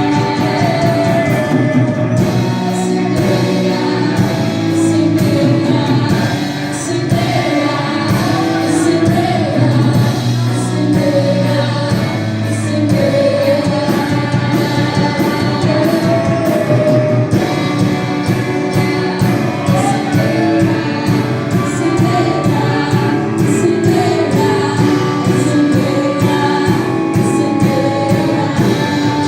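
Gospel worship music: a band accompanying a group of singers who carry a sung melody throughout.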